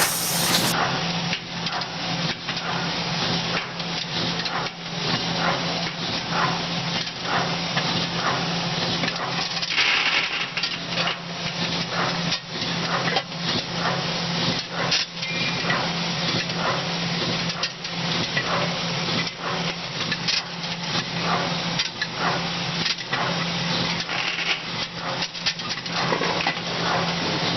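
Yeswin YBF13B6S six-station cold-forging bolt former running, with a dense, continuous clatter of rapid knocks over a steady low hum.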